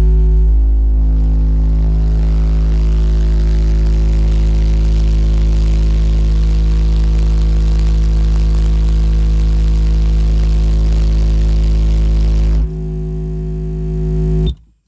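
Toro Tech Force 8 car subwoofer playing a steady, very deep bass test tone at about 800 watts for an SPL run, reaching 144.34 dB, heard inside the vehicle's cabin. About twelve and a half seconds in it drops in level, then cuts off about two seconds later.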